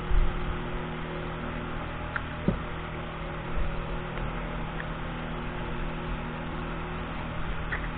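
Steady low hum, with a few faint light clicks scattered through it and a low thump at the very start.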